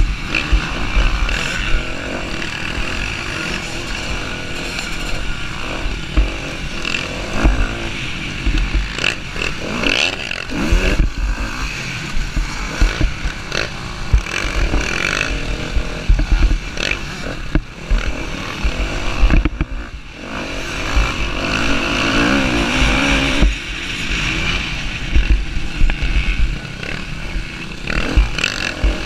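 Onboard sound of a Husqvarna TC250R motocross bike racing on a dirt track, its engine revving up and down through the corners and straights. Heavy wind buffets the microphone, and other dirt bikes can be heard close by.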